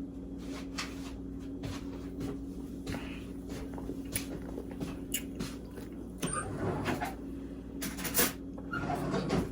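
A person gulping fizzy soda from a bottle without stopping, with faint regular swallows about every half second. A few louder gulps and bottle-handling noises come in the last three seconds.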